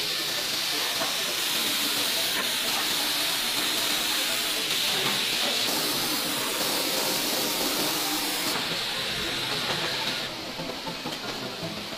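Steady hissing and churning of water, as from a hot cast wheel being quenched, mixed with factory noise. The sound changes abruptly at several points and drops in level about ten seconds in.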